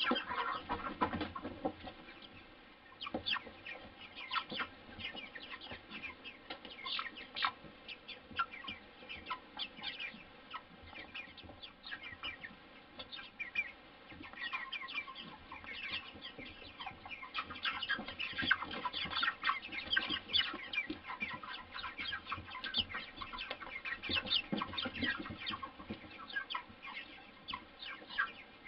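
A flock of white broiler chickens calling, many short, high, falling notes overlapping one another, thickest about two-thirds of the way in.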